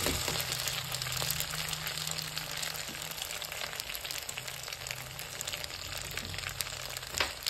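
Hot melted butter sizzling and crackling in a pot around freshly drained wet spaghetti, a steady fine crackle over a low hum, with one short knock near the end.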